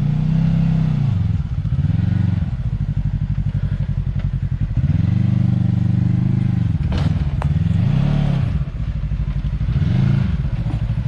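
Side-by-side UTV engine revving in about five short throttle surges as it crawls up an off-camber rock ledge, with a couple of sharp knocks about seven seconds in.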